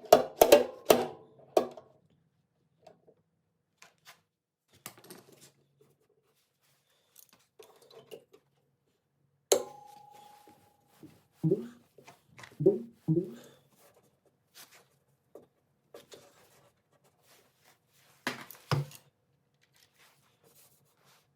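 Hammer strikes on a dented sheet-steel car body panel, each with a short metallic ring, as the dent is worked out. A quick run of strikes opens, then scattered taps and clicks with pauses, a cluster of ringing blows about halfway through, and one more hit near the end.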